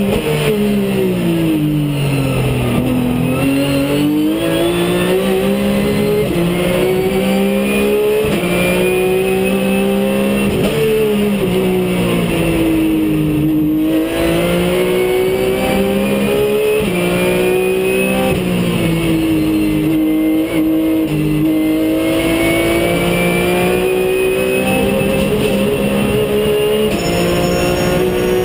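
Race car engine heard from inside the cockpit at speed. Its pitch climbs under acceleration and falls away under braking several times, broken by sudden jumps in pitch at the gear changes.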